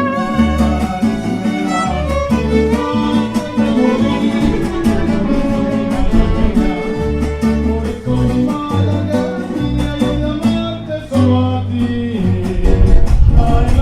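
A live mariachi ensemble playing, with violins carrying the melody over strummed guitars and deep bass notes that change every second or so.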